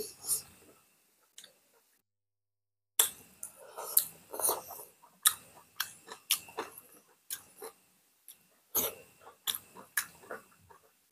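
Close-miked mukbang eating sounds: two people chewing and lip-smacking on boiled pork and greens eaten with their fingers, a rapid string of wet clicks and smacks. A silent gap of about two seconds comes near the start.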